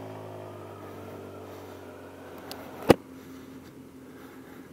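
Genuine Scooter Company Rattler 200i's 200 cc fuel-injected engine running while the scooter is ridden, its note fading about halfway through. A single sharp knock near the end of the third second.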